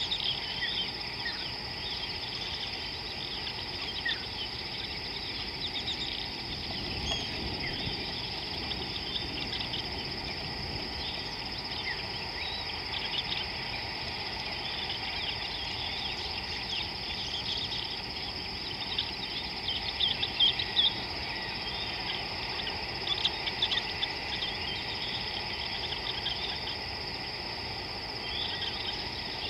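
Outdoor wildlife ambience: a steady, high insect trill under a busy scatter of short bird chirps and calls, with a few louder chirps after the middle.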